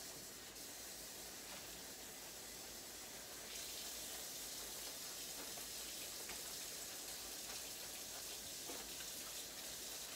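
Kitchen faucet running steadily as hair is rinsed under the stream: a faint, even hiss of water that gets slightly louder about three and a half seconds in.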